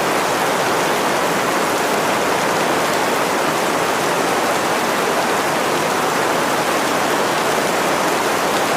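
Steady rain falling, a constant even hiss of many drops with no single drop standing out.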